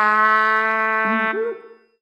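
Background music: a short closing jingle's final note, held steadily and then dying away a little before the end, with a brief low wavering sound under it about a second in.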